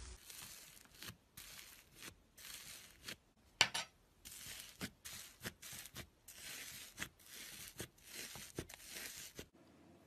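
White fluffy slime in a glass bowl being pressed and pulled apart by fingers, making a run of short, crackly rustles with one sharp click about three and a half seconds in. The sounds stop shortly before the end.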